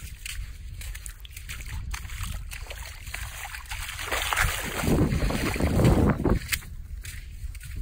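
Wind buffeting the phone's microphone as a low rumble, surging louder about four to six seconds in.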